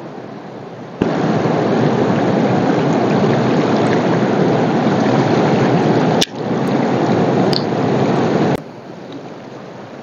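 Fast river water rushing over rocks, a steady rush of noise with no distinct events. It jumps suddenly much louder about a second in, dips for a moment around six seconds, and drops back to a quieter rush near the end.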